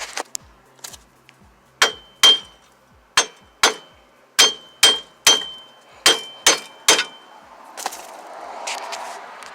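About ten hammer blows on steel, in a loose rhythm of roughly two a second, each ringing briefly: knocking the old front wheel hub and bearing loose from the knuckle. A softer rushing noise follows near the end.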